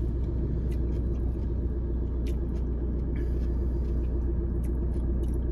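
Steady low rumble of a car running while parked, heard inside its cabin, with a few faint small clicks of food being handled.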